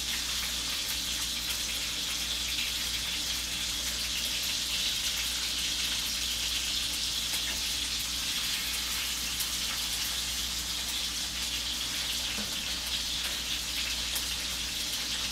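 Boneless, skinless chicken thighs sizzling in hot fat in a cast-iron skillet: a steady frying hiss with faint crackles.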